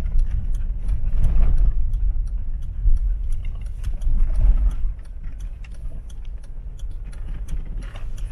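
Toyota 4Runner's in-cabin driving rumble, with scattered light ticks. The rumble drops noticeably about five seconds in as the truck leaves the pavement for a dirt track.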